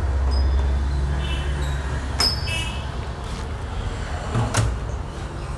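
Double doors of a wooden cabinet being pulled open: a sharp click about two seconds in, with a short high metallic ringing from the small bell ornaments on the doors, and another knock near the end. A steady low rumble runs underneath.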